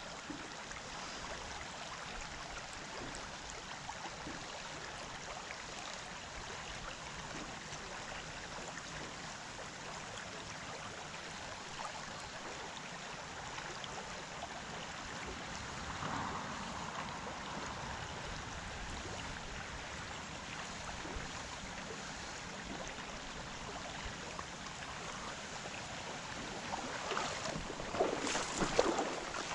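Shallow stream riffle flowing steadily around a wading angler, an even rush of water. Near the end come a few louder sharp sounds.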